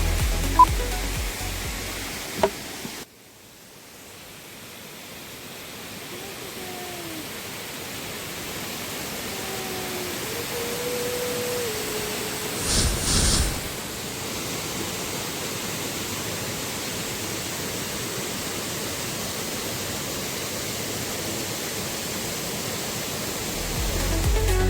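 Background music fades out over the first three seconds, giving way to a steady rushing noise that builds and then holds. A brief double burst of noise comes about halfway through.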